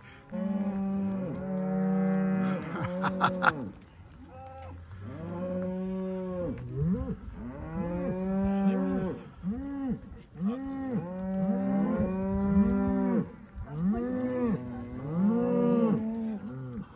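A herd of range cattle mooing as it is driven past, one long call after another, often overlapping. A brief clatter of sharp clicks comes about three seconds in.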